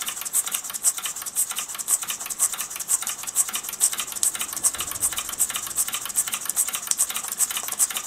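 Mamod SP7 twin-cylinder sleeve-valve model steam engine running on its first run-in, making a quick, even ticking from its working parts.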